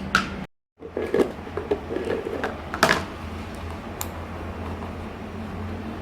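A blade cutting through a thin plastic box: scattered clicks and scrapes, with a sharper snap about three seconds in, over a steady low hum.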